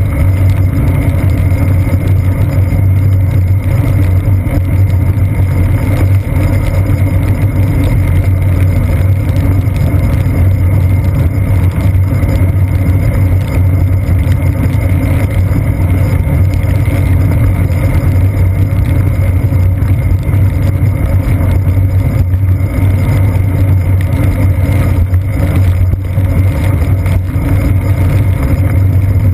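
Steady low rumble and hum of a bicycle rolling over wet pavement, picked up through the seat post by a GoPro Hero 2 mounted there: muffled tyre and road vibration rather than distinct sounds.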